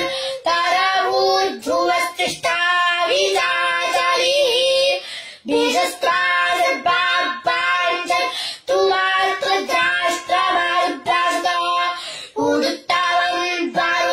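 A young boy chanting Vedic mantras in a clear, high voice, holding level notes that step between a few pitches, with short breaks for breath about five seconds in and again near the end.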